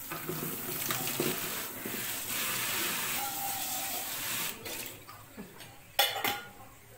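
Kitchen tap running water for about four and a half seconds, most likely filling the teakettle. About six seconds in comes a sharp clatter of a pot or kettle being set down.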